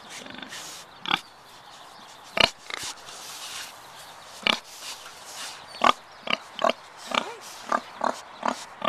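Domestic pigs grunting: about a dozen short grunts, sparse at first and coming closer together in the second half.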